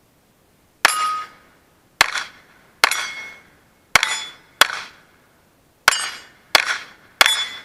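A Browning Buck Mark .22 LR pistol fires eight shots at steel target plates, at uneven intervals of about half a second to a second. Most shots are followed by a brief ring of struck steel, and the pitch differs from plate to plate.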